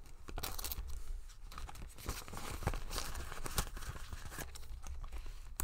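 Rustling and crinkling of clear plastic zip pouches in a ring binder, with paper banknotes being handled and scattered light clicks and taps.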